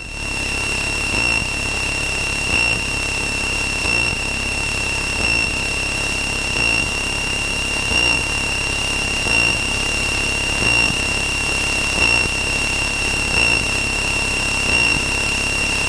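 Steady in-flight cabin noise of a Cessna 162 Skycatcher, its four-cylinder Continental O-200 engine and the airflow making an even drone. A constant high-pitched whine sits over it, and the drone swells slightly about every second and a half.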